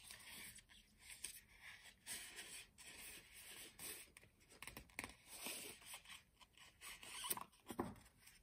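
Faint, irregular rustling and short peeling, zip-like sounds of a roll of printed washi tape being unrolled and handled by hand.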